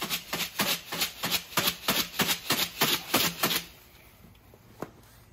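Dry chicken scratch (cracked corn, black oil sunflower seeds and dried fly larvae) rattling inside a lidded plastic bucket as it is shaken to mix it: quick, even shakes, about five a second, stopping about three and a half seconds in. A single light knock follows near the end.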